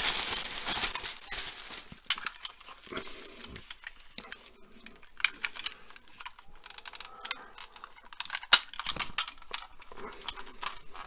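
A clear plastic bag crinkling as a toy robot is pulled out of it. Then light, scattered clicks and knocks of hard plastic toy parts being handled, with one sharper click late on.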